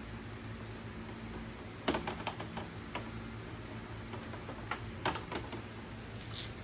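Light clicks and taps of small hard parts or tools being handled, in a cluster about two seconds in and another about five seconds in, over a steady low hum.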